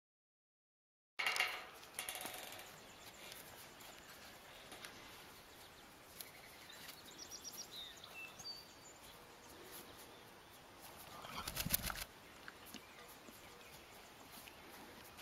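Silence for about a second, then faint pasture ambience with a few bird chirps. About eleven seconds in, a grazing horse gives one short, noisy snort through its nostrils.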